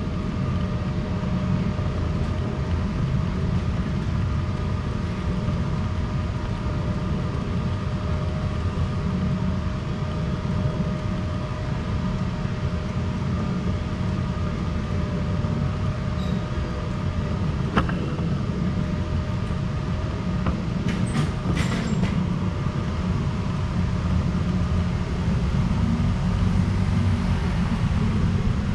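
City street ambience heard while walking: a steady low rumble with a faint constant hum above it, and a few short clicks about two-thirds of the way through.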